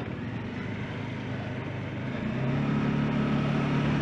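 Motorcycle riding noise in traffic: a steady rush of wind and road noise with engine hum. A steady engine drone grows louder from about halfway through.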